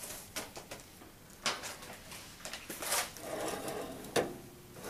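Oven accessories such as a rotisserie kit and grill rack being handled and set down: a handful of sharp clicks and knocks, with a soft scraping between them.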